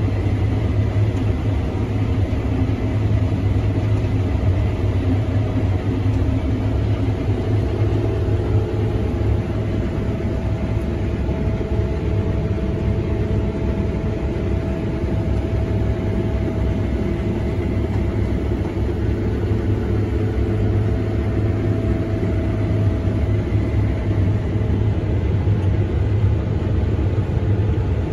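Combine harvester running under load while cutting wheat, heard from inside the cab: a steady low drone of engine and threshing machinery.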